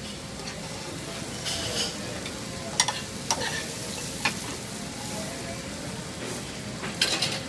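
Sautéed potatoes and peppers sizzling in a metal skillet on a gas burner as a metal spoon scrapes through the pan. A few sharp clinks of the spoon against the pan and plate.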